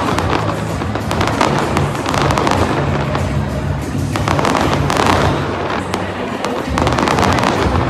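Fireworks display: many rapid crackling pops from the shells bursting overhead, continuous throughout, with music playing underneath.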